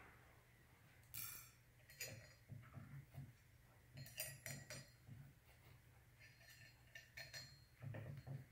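Faint, scattered clinks of small steel parts, bolts and screws, being handled and set into a steel fixture plate, each a short metallic tick with a brief ring, over a low steady hum.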